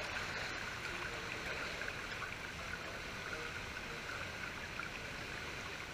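Swimming pool water sloshing and lapping around a camera held at the surface: a steady splashy wash.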